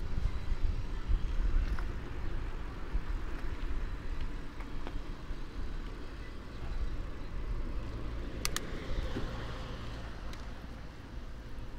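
Road traffic noise: a steady low rumble, with a couple of brief sharp clicks about eight and a half seconds in.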